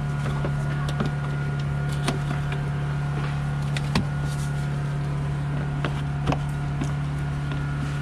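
A steady low hum with light clicks and taps scattered through it, the sharpest about two, four and six seconds in, from gloved hands working plastic parts and lines in a van's engine bay.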